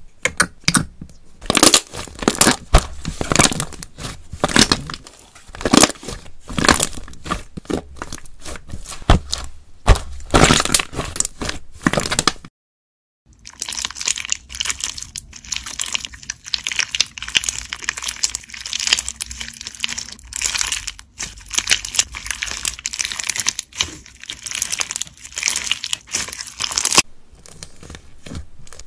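Slime being squeezed, pressed and poked by hand, making rapid crackling, popping and crunching clicks. The sound cuts to silence for a moment about twelve seconds in, then resumes as clear slime packed with small plastic bottle charms is squeezed.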